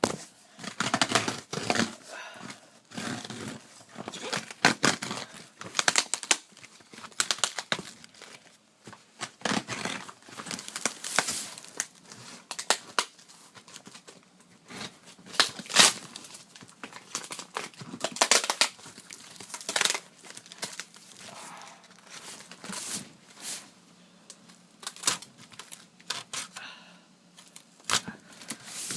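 A tightly packed cardboard box being torn open by hand, with irregular bursts of tearing and the crinkling of packaging.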